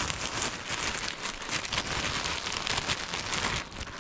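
Thin plastic bag crinkling and rustling as it is handled, a dense run of fine crackles that eases off near the end.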